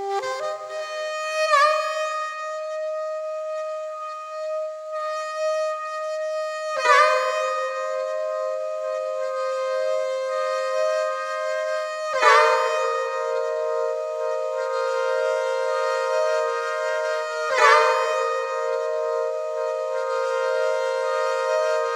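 Music: a reedy wind instrument holding long, slow notes, with a new note about every five seconds, each one starting with a short dip and slide up into pitch.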